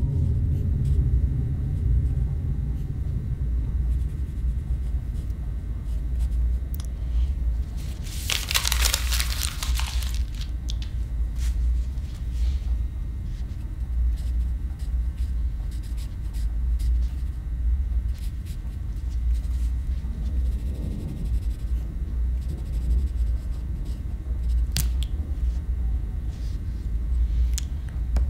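A steady, low rumbling drone throughout, with a loud rasp of paper, about two seconds long, some eight seconds in, and a few faint ticks and scratches of a pencil on a sketch pad.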